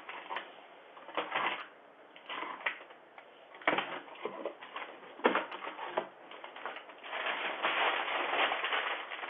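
A package being handled and opened, picked up by a doorbell camera's tinny microphone: scattered clicks, knocks and rustles, then a longer stretch of rustling from about seven seconds in.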